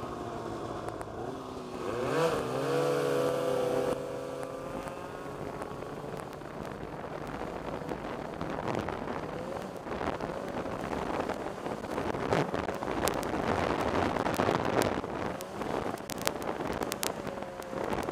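Snowmobile engines running, revving with a sharp rise in pitch about two seconds in. This gives way to heavy wind noise on the camera, with many sharp knocks in the second half.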